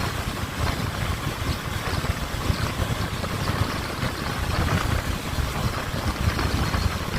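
Honda CB500F's parallel-twin engine running on the road, a steady low rumble mixed with heavy wind noise on the microphone.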